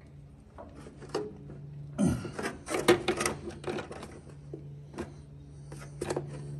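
Hand-handling noise on an aluminium wing fuel-tank assembly as a fuel hard line is bent by hand: scattered light clicks, taps and rubbing, busiest a couple of seconds in, over a steady low hum.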